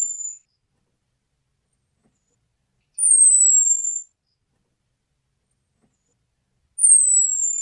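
Orange-headed thrush call: a thin, high whistle falling slightly in pitch, about a second long, repeated about every three and a half seconds. It is the call used to lure male orange-headed thrushes.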